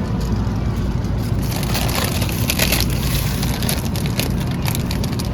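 Steady low rumble of supermarket background noise, with a run of crackling clicks from about one and a half to three and a half seconds in.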